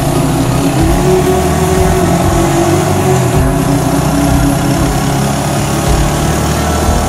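Motorcycle engine of a tricycle (motorcycle with sidecar) running steadily while under way, heard from inside the sidecar.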